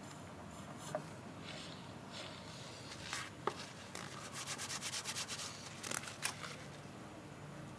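Hand work in a motorcycle repair: faint rubbing and scraping, with a quick run of short strokes, about six a second, in the middle and a few sharp clicks before it.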